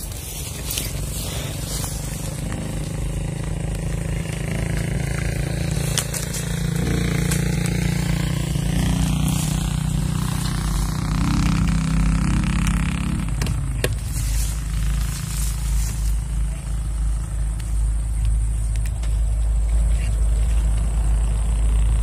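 An engine running, rising in pitch over several seconds and then dying away about two-thirds of the way through, over a steady low rumble. A single click comes soon after.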